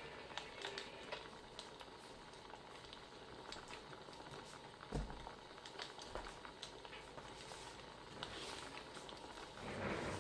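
Wood fire crackling, with irregular small pops and snaps over a steady hiss, and a soft low thump about halfway through.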